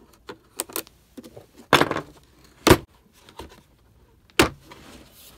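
Hard plastic clicks and knocks from a Pittsburgh socket set's molded carrying case being handled and its latches snapped open: several separate sharp snaps, the loudest a little under two seconds in, near three seconds and about four and a half seconds in.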